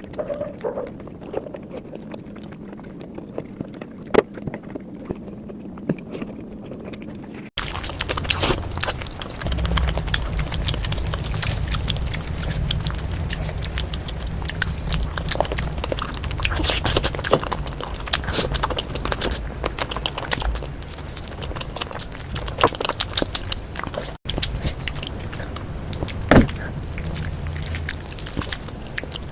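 Close-miked eating sounds: chewing with many short wet mouth clicks and crackles. The background changes abruptly twice, with a low hum present after the first change.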